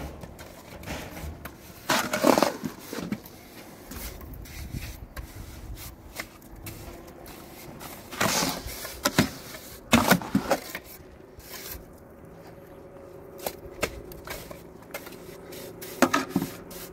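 Irregular scrapes and knocks of manual building work, tools and building materials being handled, in a few clusters with quieter stretches between.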